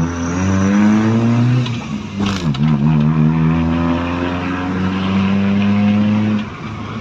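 Toyota Corolla's 2E four-cylinder engine accelerating under load, its note rising. About two seconds in the pitch drops sharply, as at a gear change, and climbs again. Near the end the throttle eases off. The engine has its ignition timing newly corrected.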